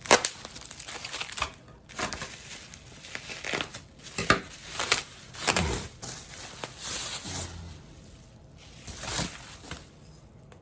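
Bubble wrap being pulled off and crumpled by hand, an irregular run of crinkling, crackling and tearing that dies away near the end.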